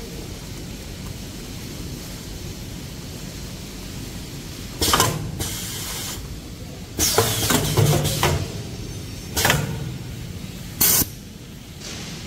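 Pneumatic packing unit of a hand towel machine firing in short, sharp hisses of released air, four times over about six seconds, the second lasting about a second. Under them runs the steady hum of the running machine line.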